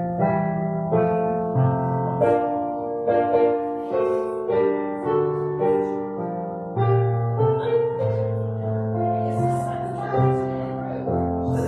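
Piano music: a melody over held chords, a new note about every half second to second.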